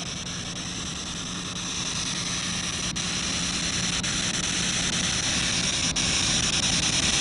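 SB7 spirit box radio sweeper putting out a steady static hiss over a low hum, slowly growing louder, with a faint click about three seconds in and another about six seconds in.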